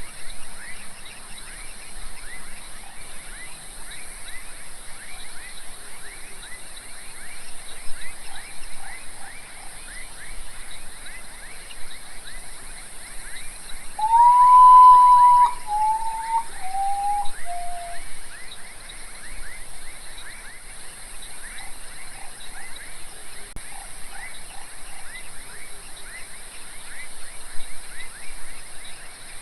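Common potoo singing its mournful song once, about halfway through: a long whistle followed by three shorter whistles, each lower than the last. A steady high hiss and a fast run of short repeated chirps continue underneath.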